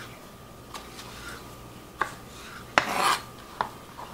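Chef's knife dicing a tomato on a cutting board: a handful of separate knocks of the blade on the board, with a louder scrape of the knife across the board about three seconds in.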